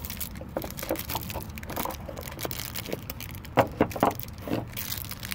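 Packaging being handled: a cigar cutter's cardboard box and its plastic bag rustling, with irregular clicks and two louder knocks a little past halfway.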